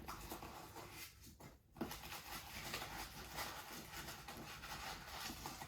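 Packing peanuts being dumped out of a shipping box: a faint, continuous rustling with a brief break about one and a half seconds in.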